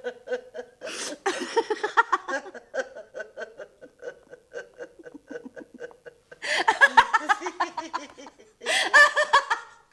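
A woman laughing, first in short, rapid, stifled bursts, then breaking out loudly twice in the second half.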